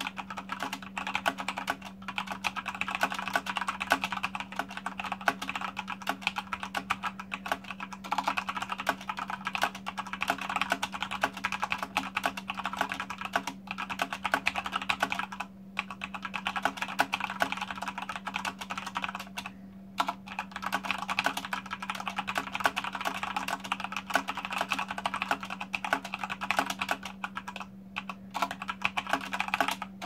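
Fast typing on a Corsair K70 RGB Rapidfire mechanical keyboard with Cherry MX Speed Silver linear switches: a dense, continuous clatter of keystrokes, broken by a few brief pauses.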